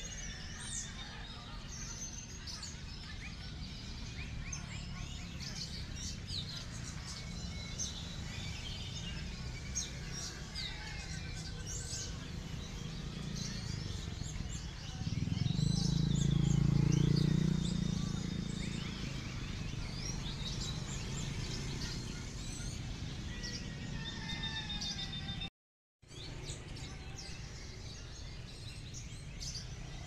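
Many caged songbirds chirping, trilling and whistling at once, their songs overlapping. A low rumble swells up for a few seconds around the middle, and the sound cuts out for a moment near the end.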